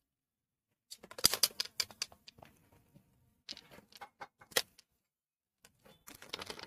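Plastic tea strainer clattering and scraping on a tiled floor while a kitten bats at it and claws its mesh. The sound comes in three bursts of quick scratchy clicks: about a second in, around three and a half seconds, and near the end.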